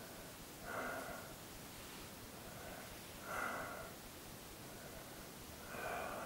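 Slow breathing of a man lying under hypnosis: three faint breaths about two and a half seconds apart.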